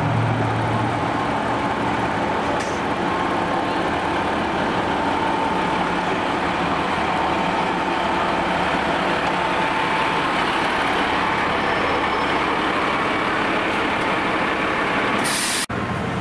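Diesel engine of a fire apparatus running loud and steady as the heavy truck pulls out and drives past close by. Near the end a short high hiss, then the sound cuts off abruptly.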